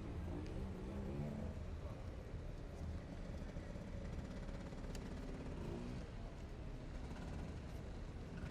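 Vehicle engines running on a street: a steady deep hum, with an engine note that rises and falls between about one and six seconds in.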